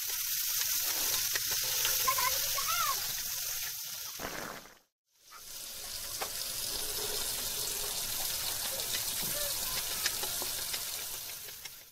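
Tomato pieces, then onion and garlic, sizzling in hot oil in a wok: a steady frying hiss. It cuts out completely for about half a second around five seconds in, then resumes.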